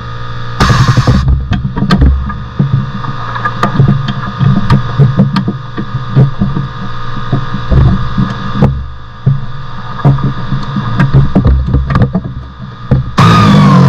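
Irregular metallic knocks and clanks of tools working on car parts over a steady low hum. Loud music cuts in suddenly near the end.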